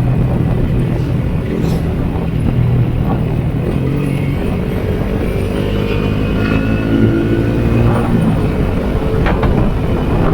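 Yamaha Sniper 150's single-cylinder four-stroke engine running on the move, its pitch holding steady at first and then rising as it revs up between about five and eight seconds in before dropping back.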